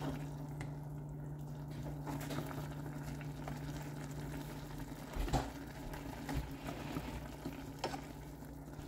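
Curry noodle broth simmering in a stainless steel saucepan, bubbling steadily over a low hum, while wooden chopsticks stir the noodles and knock lightly against the pot a few times, most sharply about five seconds in.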